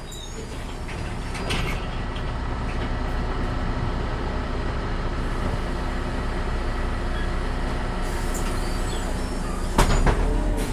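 Interior of a city bus: the engine runs with a steady low hum and rattles, fading in over the first couple of seconds. A short knock comes about a second and a half in, and a louder clunk near the end.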